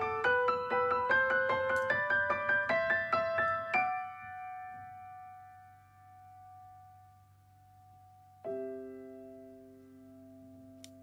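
Solo piano background music: a quick run of notes climbing step by step, then a single held note that fades, then a chord struck about eight and a half seconds in and left to ring.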